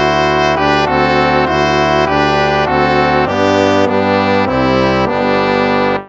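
Instrumental hymn played as held brass chords, the chord changing every half second to a second, stopping abruptly at the very end.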